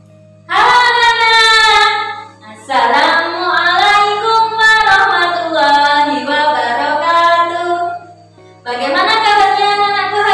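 A high female voice sings a melody in long held notes, in phrases broken by short pauses about two and a half seconds in and again near the end.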